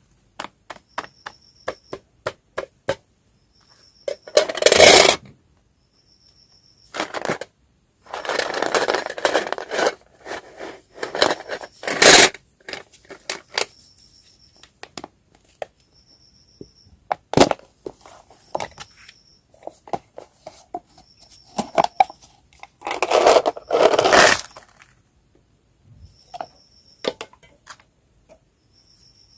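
Candy and its plastic packaging being handled and mixed: sharp clicks and taps as small pieces drop and knock together, with several louder spells of crinkling and scraping, the biggest near the end. A faint high chirp repeats about every two seconds throughout.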